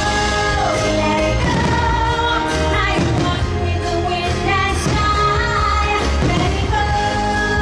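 Fireworks-show soundtrack: pop-style music with a woman singing, with a few bangs mixed in.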